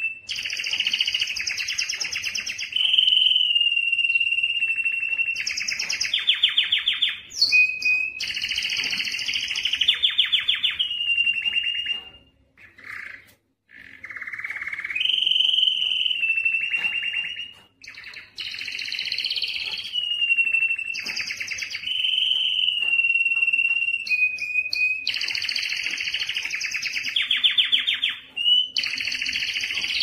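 Male domestic canary singing its courtship song: a long run of rapid trills alternating with steady held whistled notes, broken by a short pause about halfway through.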